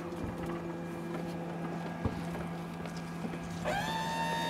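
A small electric motor starts near the end with a whine that rises in pitch and then holds steady. Before it there is a low steady hum and a single knock about two seconds in.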